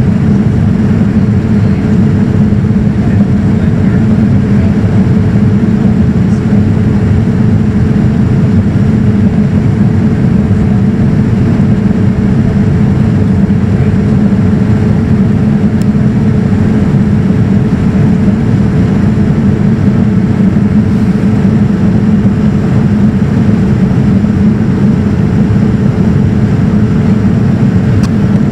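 Cabin noise inside a Boeing 787-9 in climb: a steady, deep rush of airflow and Rolls-Royce Trent 1000 engine noise with a steady hum running through it.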